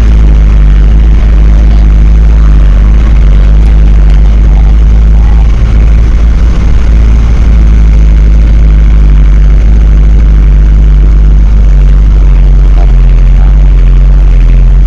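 Van's engine running while the van drives slowly over a rough, stony track, heard from inside the cab: a loud, steady low rumble with the engine note shifting slightly in pitch as the driver works through the rough ground.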